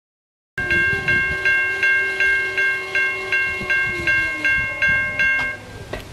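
Railroad crossing bell ringing in an even series of strikes, a little under three a second, over the rumble of passing diesel freight locomotives. The bell starts about half a second in and stops about five and a half seconds in.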